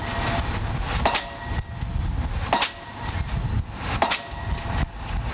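Pile-driving hammer striking a pile at a steady pace, three sharp blows about a second and a half apart, with a low steady rumble underneath.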